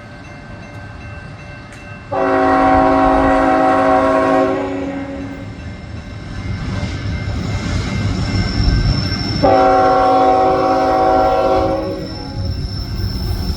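Union Pacific GE ET44AH locomotive's multi-chime air horn sounding two long blasts, about two and a half seconds each, as at the start of a grade-crossing signal. Between the blasts the low rumble of the approaching train grows louder.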